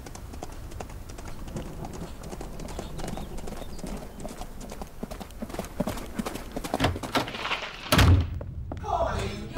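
Horse's hooves clip-clopping on a gravel road, getting louder as the horse comes closer. A heavy thud about eight seconds in is the loudest sound.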